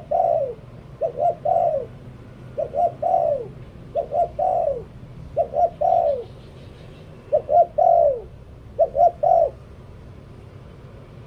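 Spotted dove cooing in its repeated song phrase: two short coos followed by a longer coo that falls in pitch, given seven times at an even pace and then stopping near the end.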